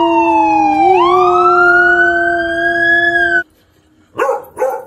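A dog howling in one long note that dips in pitch and then climbs, over a steady lower tone, cut off abruptly about three and a half seconds in. Then a beagle barks twice near the end.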